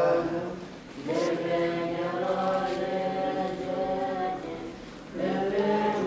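Background music: a sung chant with long held notes, breaking briefly about a second in and again about five seconds in before the next phrase starts.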